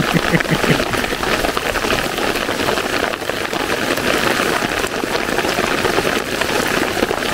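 Heavy rain pouring onto open water, a steady even hiss of countless drops hitting the surface.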